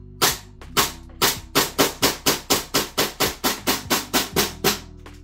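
Gas blowback airsoft rifle (a Mark 18 replica fitted with a smoke suppressor) firing about eighteen shots. The first few are spaced out, then comes a steady run of about four or five shots a second that stops shortly before the end.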